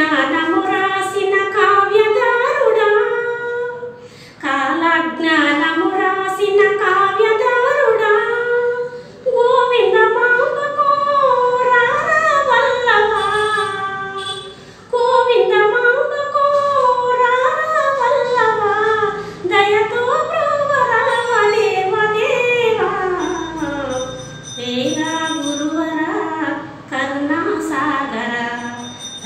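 A woman singing a Telugu devotional (bhakti) song unaccompanied. Her melody slides and turns through each long phrase, with short breaks for breath every few seconds.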